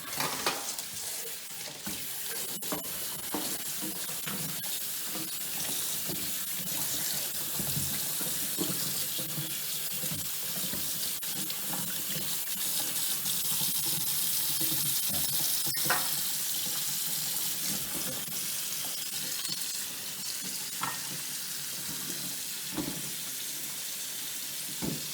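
Kitchen tap running as the fennel heart is washed under it, a steady rush of water with a few light knocks.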